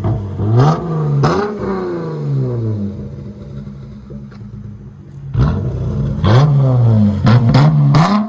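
Chrysler 300S V6 exhaust with J-pipes and mid-muffler, resonator and rear muffler deletes, being free-revved: two quick revs near the start, falling back to a low idle for a few seconds, then a run of revs and several sharp throttle blips near the end.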